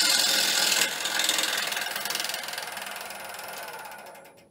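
Bowl gouge cutting a spinning natural-edge Itín wood bowl blank on a wood lathe: a loud, hissing cut with a rapid rattling tick each time the uneven rim strikes the tool. It fades steadily from about a second in, the ticks slowing as the lathe spins down, and dies away at the end.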